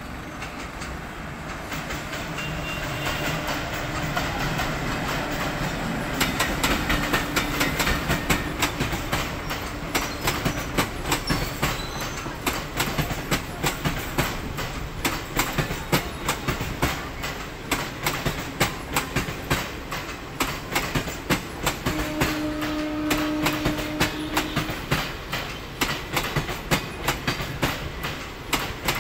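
Indian Railways intercity express passenger coaches rolling past, the rumble building over the first few seconds and then a quick, steady clickety-clack of the wheels over rail joints. A short steady whine sounds about three-quarters of the way through.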